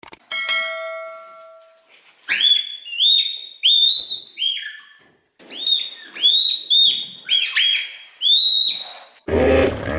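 An animal giving about a dozen high whistled calls, each rising then dropping in pitch, with a short pause midway. Before them a ringing tone fades out over about two seconds, and a rough, low sound begins just before the end.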